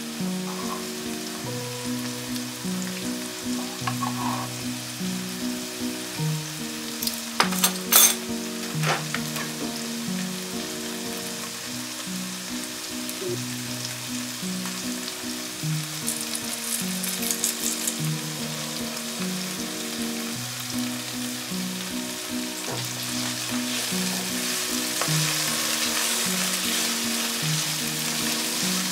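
Sliced onions and spring onions sizzling in hot oil in a frying pan, with a few sharp clicks about seven seconds in and a crackly patch around the middle. The sizzle grows louder near the end as the vegetables are stirred with a silicone spatula. Soft background music plays throughout.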